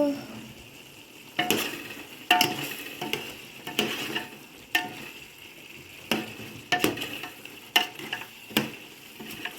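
A utensil stirring and scraping a chicken-and-masala mixture in a cooking pot, with about nine sharp scrapes or knocks against the pot roughly a second apart, over a steady sizzle of the mixture frying.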